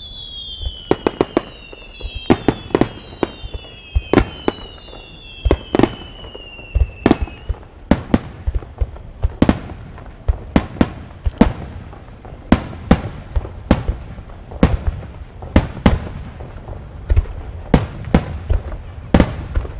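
Large starmine fireworks display: a rapid, irregular string of sharp aerial-shell bursts, about one to two a second. Over roughly the first seven seconds, several overlapping whistles fall in pitch.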